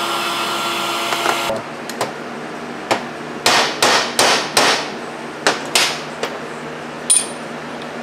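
A brass hammer tapping a new bearing into a Husqvarna 254 chainsaw crankcase: about eight quick sharp knocks with short ringing tails, then a single knock with a high ring near the end. A steady whirring hum runs for the first second and a half and then cuts off.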